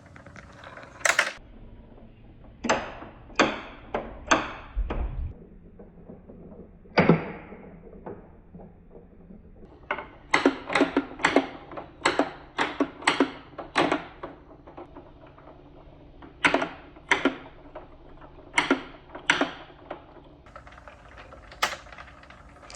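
Marbles running down a wooden marble run, clacking sharply against the wooden ramps, each click with a short bright ring. The clicks come singly at first, then in quick runs of about two a second as the balls drop from ramp to ramp.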